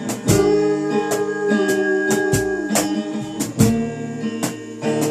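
Acoustic guitar strumming chords with no singing, between vocal lines of a song. The chords ring on between sharp strums.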